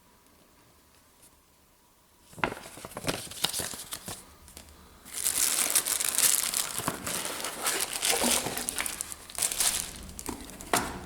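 Packaging crinkling and rustling as it is handled and opened. Scattered crackles start about two seconds in, with a denser stretch of crinkling through the middle of the clip.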